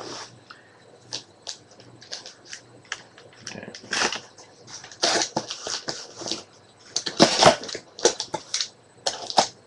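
Cardboard shipping case being slit open with a box cutter and handled: irregular scraping, slicing and rustling strokes, loudest about seven seconds in.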